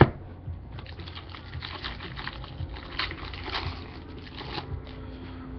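A sharp tap at the start, then a 2004 Bowman Sterling baseball card pack's foil wrapper crinkling and tearing as it is ripped open, in an uneven run of crackles.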